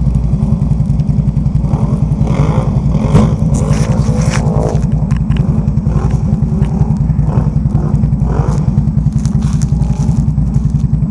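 Can-Am Renegade 1000 ATV's V-twin engine running with a steady pulsing beat, its revs rising and falling a few times.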